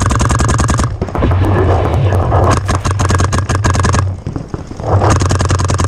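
Electronic paintball marker firing in rapid strings of about ten shots a second, close up, with short breaks about a second in and again around four seconds in.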